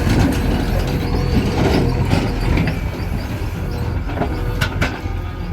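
Heavy-equipment diesel engine running steadily under work, with two sharp metallic clanks near the end.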